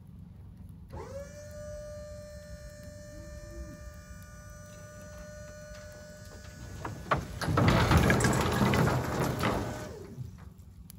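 Dump trailer's electric hydraulic pump starting up about a second in and whining steadily as it raises the bed. Near the end a load of scrap lumber slides out of the tilted bed with a loud clattering, and the pump winds down just after.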